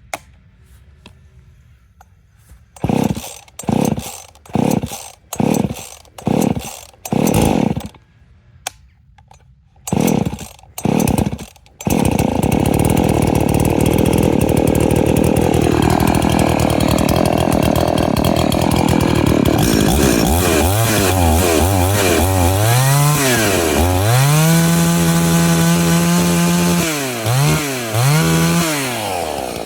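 Husqvarna 50 Rancher two-stroke chainsaw cold-started by pull cord: about eight short pulls with a pause partway, then the engine catches about twelve seconds in and keeps running. In the second half it is revved up and down repeatedly, held high for a couple of seconds at one point, and drops back near the end.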